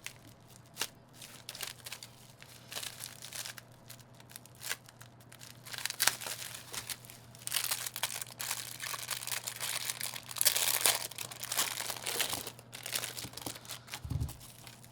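Plastic packaging of keyboard switches crinkling and tearing as it is handled and opened by hand, with many small sharp crackles, busiest in the middle and a dull bump near the end.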